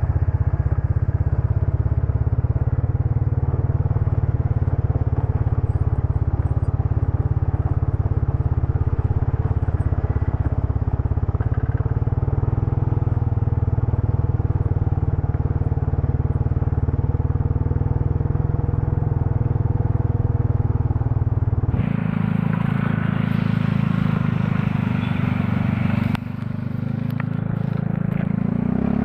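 Motorcycle engine running steadily while riding. About three-quarters through, the sound abruptly becomes noisier with more hiss and rattle, and near the end the engine note rises.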